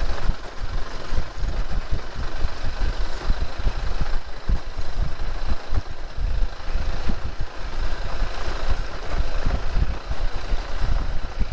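Motorcycle engine running while the bike rides over a rough dirt trail, under a dense, uneven low rumble.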